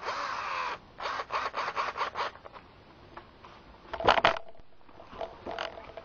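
Screws being driven into the wooden door to hold a plastic doorknob drilling jig. A scraping burst comes first, then a quick run of about seven short scraping strokes, then a few sharp clicks about four seconds in.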